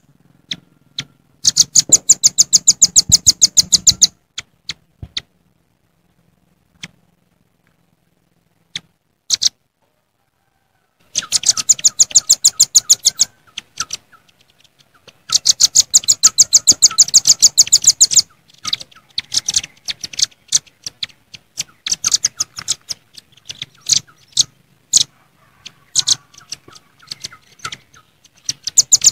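Velvet-fronted nuthatches (red-billed nuthatches) calling, often used as a rival call. They give rapid bursts of sharp, high chipping notes lasting two to three seconds, with scattered single notes between the bursts.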